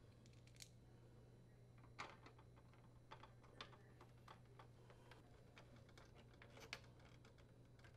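Near silence, with faint scattered clicks and ticks of a screwdriver and plastic parts as screws are driven into a plastic dryer-door retainer.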